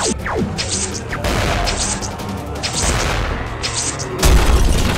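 Background action music with a strike about once a second, and a heavy boom near the end.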